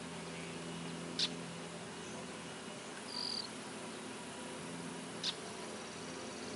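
Distant tractor engine running steadily as it pulls a disc harrow, a low drone with a few steady tones. Over it come two short sharp high chirps, about a second in and about five seconds in, and a brief higher chirp around three seconds.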